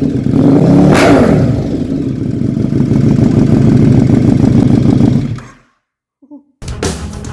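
KTM 1290 Super Duke R Evo V-twin through a MIVV X-M5 titanium slip-on exhaust with the baffle removed: a sharp throttle blip about a second in, then steady loud running. The sound cuts away about five and a half seconds in, and after a short silence heavy rock music with guitar and drums starts.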